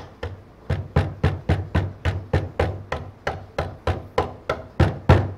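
White rubber mallet tapping carriage bolts through pre-drilled holes in a wooden chair frame, a steady run of light strikes about four a second.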